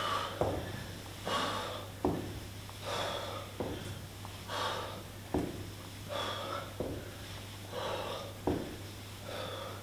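A man breathing hard and rhythmically through a set of starfish crunches, a forceful exhale about once a second, with a short light knock as a hand or foot comes down on the floor mat at most reps.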